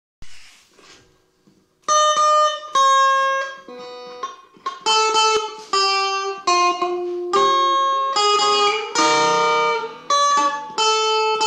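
Stratocaster-style electric guitar, clean tone, picking a slow melody one note at a time: the tune of an alarm-clock tone played on the guitar. The notes start about two seconds in, after a knock and some handling noise.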